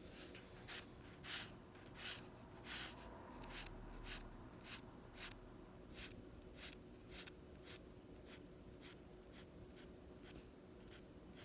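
Drawing strokes scratching across paper, short quick strokes at about two a second, a little louder and denser in the first few seconds.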